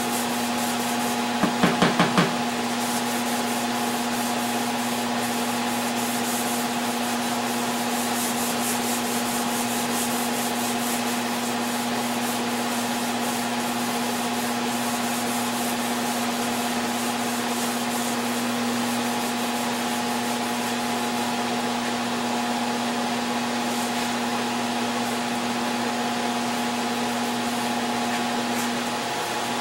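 Power sander running steadily on the oak cabinet parts, sanding them in preparation for finishing, with a steady motor hum under the rasp of the abrasive. About two seconds in there is a quick run of four or five knocks.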